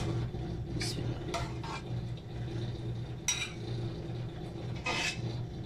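Metal ladle knocking and scraping against the inside of a pressure cooker as thick dal is ladled out: a handful of separate knocks, one with a short metallic ring about three seconds in. A steady low hum runs underneath.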